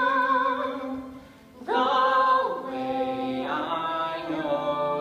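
Singing voices holding long closing notes with vibrato over a steady musical accompaniment. The sound thins for a moment about a second in, then a strong new held note comes in, followed by another shortly after.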